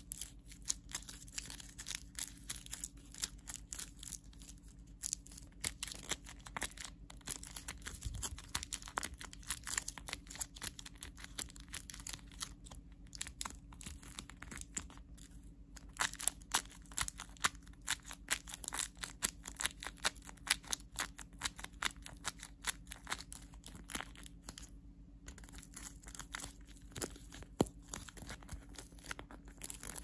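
Handmade fidget toy being squeezed and handled: continuous irregular crinkling with many small sharp crackles, louder in the middle stretch, over a faint steady low hum.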